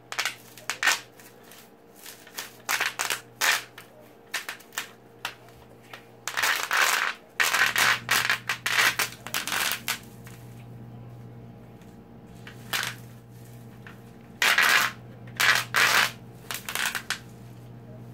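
Bubble wrap popping under a plastic pipe rolled across it by hand: sharp pops in scattered clusters, with a dense run of rapid pops in the middle and another near the end.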